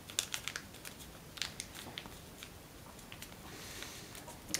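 Origami paper crinkling and crackling as it is handled and pressed flat by hand: a scatter of small sharp crackles, a brief soft rustle about three and a half seconds in, and a sharper crackle near the end.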